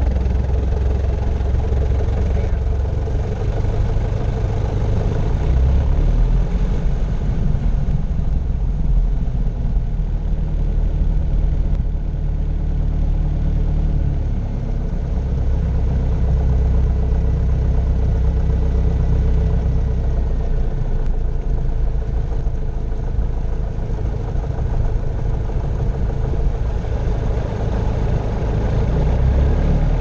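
Grumman Tiger's 180 hp Lycoming O-360 four-cylinder engine and propeller running at low taxi power, heard from inside the cockpit. The low engine note shifts slightly a few times.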